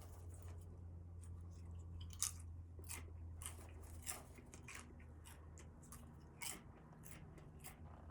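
Scattered soft clicks and crunches at irregular intervals, the sharpest about two seconds in and again near six and a half seconds, over a low steady hum that fades about four seconds in.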